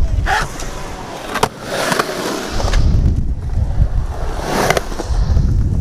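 Skateboard wheels rolling over concrete, a low rumble that grows loud from about halfway through, after a few sharp clacks of a board striking the concrete in the first two seconds.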